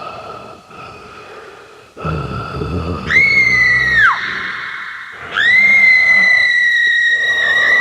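Two long, high-pitched shrieks from a Halloween sound-effects recording: a short one of about a second, then a longer held one, each rising sharply at the start and dropping at the end. A low rumble comes in about two seconds in, under the first shriek.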